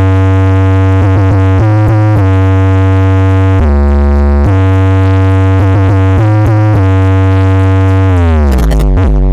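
Electronic bass music played very loud through a 2500-watt-class contest sound system's speaker stacks: deep synth bass notes that step between pitches, drop to a lower note for about a second around the middle, and slide downward near the end.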